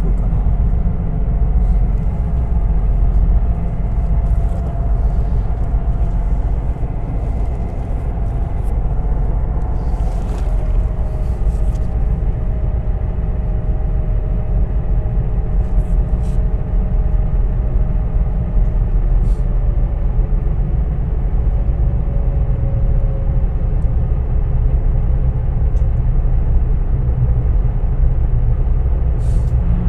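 Engines of a high-speed passenger ferry heard inside its cabin: a steady, loud low rumble, with a faint engine tone that slowly falls in pitch.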